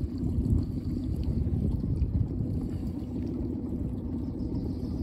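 Steady low rumble of wind buffeting the microphone over flowing shallow river water.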